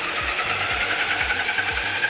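Electric drive motors and gearing of a souped-up Roomba running at speed with a loud high whine that creeps slightly upward in pitch, over a dense hiss. A steady bass-drum beat of background music sounds underneath.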